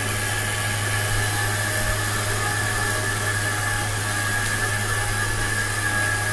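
End mill held in an LHC hydraulic toolholder milling a metal plate on a machining spindle. It gives a steady cutting noise with a faint high tone and a low hum, and little chatter: the hydraulic holder damping the tool's vibration.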